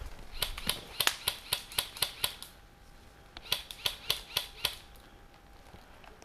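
Tokyo Marui SCAR airsoft rifle fired in rapid semi-automatic shots, each a sharp crack: a string of about ten at roughly four or five a second, a pause of about a second, then about six more.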